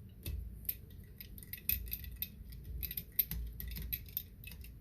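Small precision screwdriver turning out a tiny laptop screw: a run of light, irregular metallic ticks and clicks, with a few dull handling bumps.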